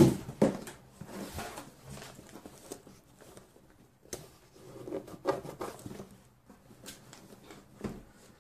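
Cardboard laptop box and its paper insert being handled: a knock at the start, then scattered rustling and scraping of cardboard and paper, with another short knock near the end.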